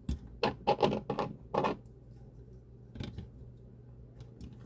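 Hard plastic toy parts clicking and knocking as pieces of a Transformers figure and its add-on weapon kit are handled and fitted together. There is a quick run of sharp clicks in the first two seconds and one more about three seconds in.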